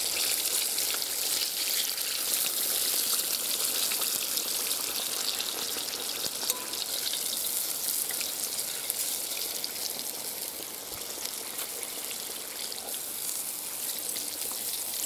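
Floured carp steaks deep-frying in hot vegetable oil in a kazan: a steady sizzle with scattered small crackles, easing somewhat in the second half.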